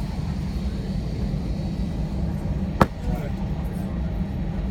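Steady low rumble of an airliner cabin as the jet leaves the gate for takeoff, with one sharp click a little under three seconds in.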